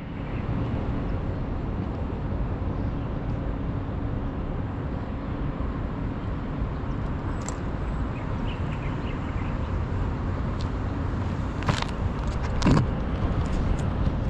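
Steady outdoor background noise, like distant road traffic, picked up by a small camera's microphone. Near the end come a few knocks and clicks as the camera is handled and picked up.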